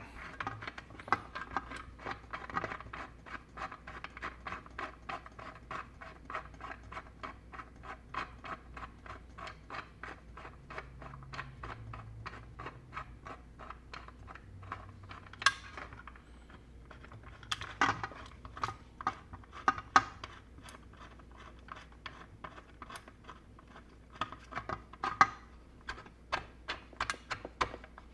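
Rapid small clicks and scrapes of hand tools working small metal parts, several a second, with a few louder knocks past the middle.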